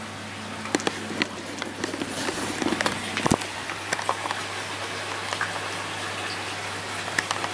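Scattered light clicks and knocks over a steady low hum, with one louder knock about three seconds in.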